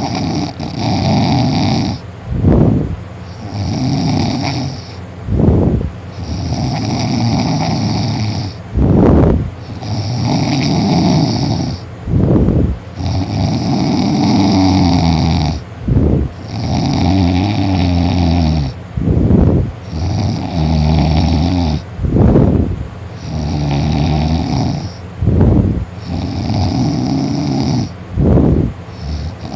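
A man snoring heavily and loudly in deep sleep after drinking, with a steady rhythm of about one breath every three seconds. Each breath is a long rattling snore of about two seconds followed by a short, sharp breath sound.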